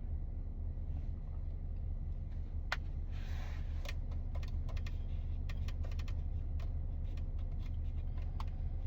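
Low steady rumble of an idling car heard inside the cabin, with a run of light clicks and taps starting a little under a third of the way in.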